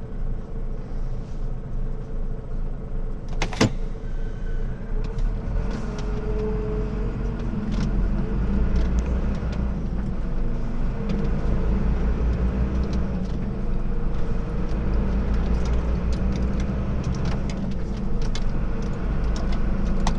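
Lorry diesel engine running, heard from inside the cab, with a single sharp click about three and a half seconds in. After about five seconds the engine pulls harder and steadier as the lorry moves off.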